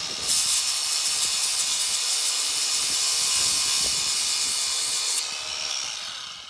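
Small handheld power tool grinding metal, a steady high rushing hiss, rounding off sharp edges of a stainless steel mounting part. It slackens about five seconds in and winds down at the end.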